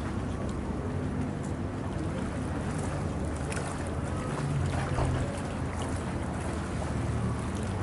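A boat's engine running steadily, a low even hum with a rush of water and wind noise over it.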